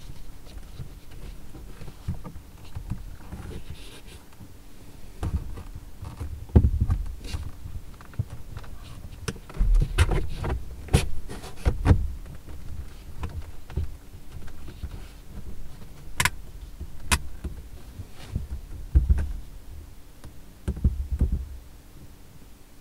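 A plastic clip-on flip-down visor extension being handled and clipped onto a car's sun visor: scattered plastic clicks, snaps and knocks with low thumps, several sharp snaps near the middle.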